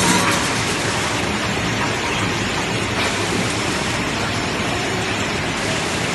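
French-fry processing line running: a steady, even machine noise from the potato conveyors and the strip-cutting machine.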